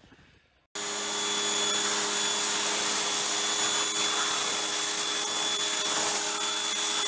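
Pressure washer running, its jet spraying water through the aluminium fins of a vehicle heater core: a steady hiss of spray over the steady hum of the washer's motor and pump. It starts suddenly under a second in.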